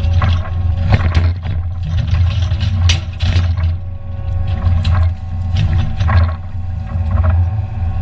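Excavator's diesel engine running steadily, heard from inside the cab, with the hydraulics whining and changing pitch as the timber grab works. Branches crack and knock several times as the grab closes on and lifts a load of cut brush.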